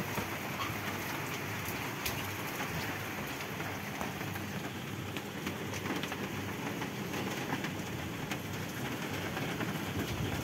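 Thunderstorm downpour: heavy rain pouring steadily on the roof and garden, with scattered sharp taps of drops hitting close by.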